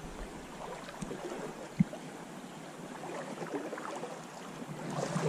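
Trout stream running, a steady watery rush, with one short dull thump about two seconds in.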